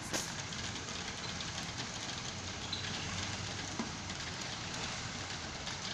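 Steady outdoor background noise at night: an even hiss with a faint low hum underneath, and a short click just after the start.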